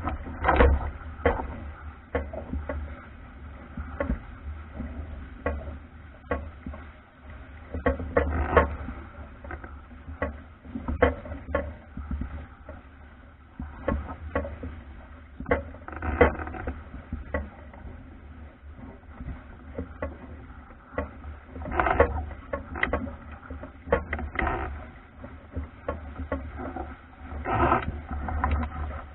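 Albacore sailing dinghy driving through choppy water: irregular knocks and slaps of the hull on the waves and the rush of the bow wave, with several louder splashes, over a steady low rumble.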